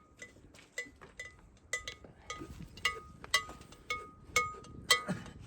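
Small metal bell clinking irregularly, about ten strikes roughly every half second, each ringing briefly at the same pitch.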